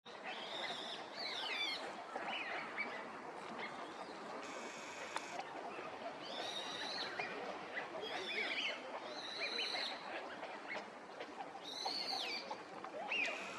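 Birds calling: repeated high, arching calls every second or two over a dense chatter of lower calls, with a short hissy burst about four and a half seconds in and again near the end.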